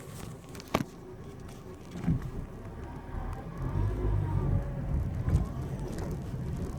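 2013 Nissan Versa under way, a low engine and road rumble building after about two seconds, with a faint whine rising and falling over it: the whine on acceleration that the owner takes for a CVT problem. A single click a little under a second in.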